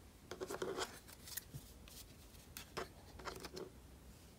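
Tarot cards being handled: faint scraping and light clicks of card stock sliding against card, in short clusters about half a second in and again around three seconds in.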